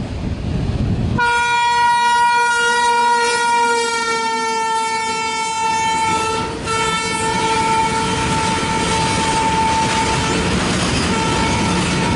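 WAG9 electric freight locomotive's horn blowing long and drawn out, starting about a second in, with two short breaks and a slight fall in pitch as it passes. Underneath, the rumble of the loaded coal train running by.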